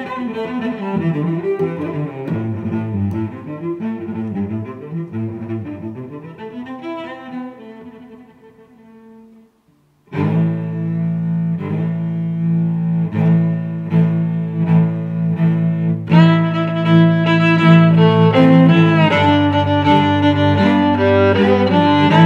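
Background music: one piece fades out to a short gap about ten seconds in, then another begins with a steady pulse of repeated notes.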